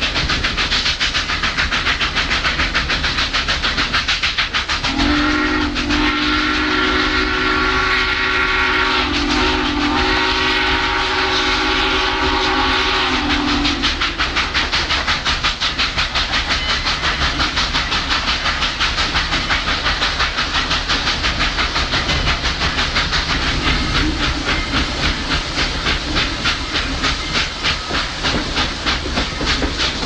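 Southern Railway 2-8-2 steam locomotive No. 4501 working hard, its exhaust beating in a rapid even rhythm, heard from the train riding just behind it. About five seconds in, its steam whistle sounds one long blast of about eight seconds, with a short break partway through.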